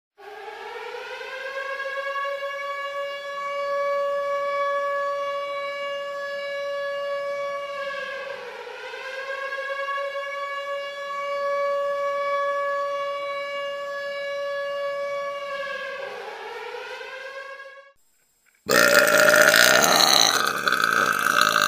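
A siren wails for about eighteen seconds, holding a steady pitch and dipping and rising again twice, then cuts off suddenly. After a short gap a woman lets out a loud, rough belch.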